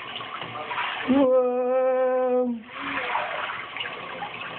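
Water from a handheld shower head spraying and splashing in a bathtub. About a second in, a loud, steady humming tone holds for over a second and then stops.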